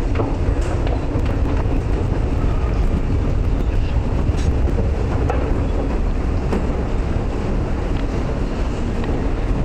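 Steady rumbling din of a subway station transfer passage, heaviest in the low end, with faint scattered clicks.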